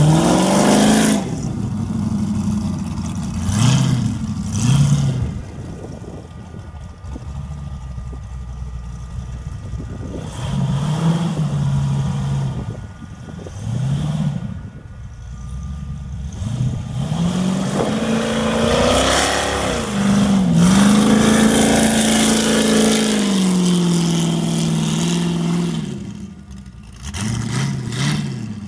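13Motorsports Ultra4 Pegasus race buggy's engine revving as it drives off, in repeated short throttle blips that rise and fall in pitch, then a longer, louder pull in the second half with a brief dip in revs partway through.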